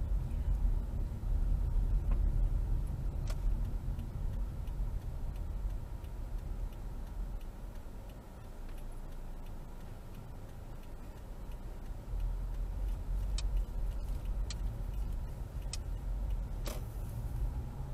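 Car engine and tyre rumble heard from inside the cabin, quieter around the middle while the car slows and waits, then louder as it pulls away and accelerates. A few sharp clicks sound near the end, followed by a single thump.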